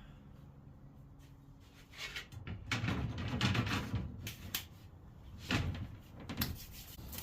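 Wooden knocks and clatter of boards being handled, a busy run of them about two seconds in, then a few single knocks.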